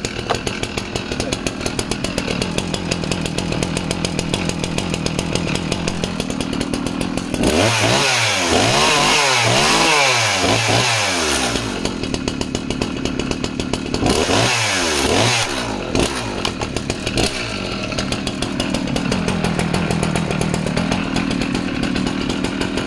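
Husqvarna 266 two-stroke chainsaw (50 mm piston, 34 mm stroke) idling. About seven seconds in it is revved up and down several times in quick succession for about four seconds, then drops back to idle. It is blipped a few more times around the middle and then idles again.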